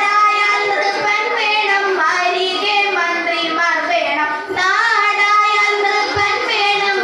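Girls' voices singing a Thiruvathira song, the melody moving in long, pitch-bending phrases with a brief break about four and a half seconds in.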